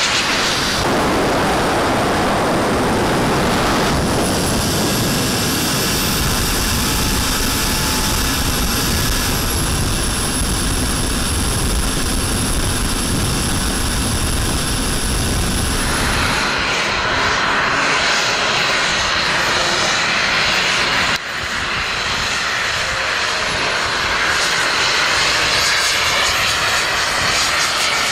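Gas turbine engines of radio-controlled model jets running in flight: a loud, steady rushing roar. A thin high whine runs through the first half, and the sound changes abruptly twice as the shots cut.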